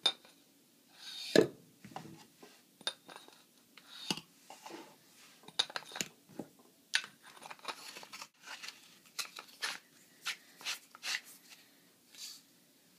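Irregular clicks, knocks and rustles of a Coast HP17 flashlight being handled, with a louder knock about a second and a half in, as it is loaded with three D batteries and its tail cap is fitted.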